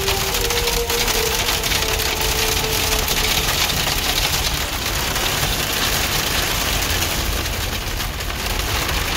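Rain and hail pelting the roof and windshield of a Jeep Wrangler, heard from inside the cab as a steady dense patter of small hits over the running engine.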